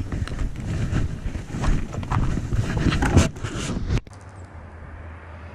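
Footsteps and rustling with wind rumbling on the microphone, cutting off abruptly about four seconds in to a faint steady hum.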